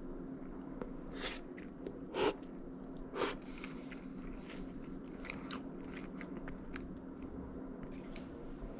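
A person eating a bowl of scallion oil ramen with a fried egg, heard close to the mouth: three distinct bites in the first few seconds, then chewing with many small clicks.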